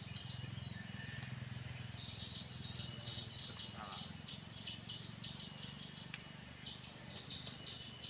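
Velvet-fronted nuthatch calls: high, thin chips coming in quick runs, with a falling whistle about a second in, over a steady high insect buzz.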